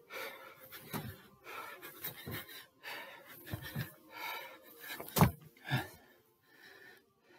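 A man panting hard during a set of box jumps, with his feet thudding as he lands on a stair step. The heaviest landing comes about five seconds in.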